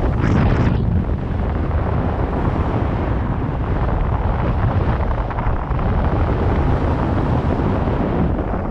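Wind buffeting the microphone of a camera riding with a wakeboarder, over the rush of water under the moving board. A brief hiss of spray comes off the board just after the start.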